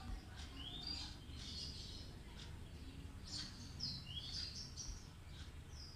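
Small birds chirping: a busy run of short, high chirps and quick gliding notes, several a second, over a faint low hum.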